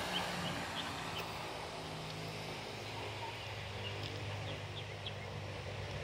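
Outdoor ambience: a steady low hum, like a running engine, over a background hiss, with a few short high chirps now and then.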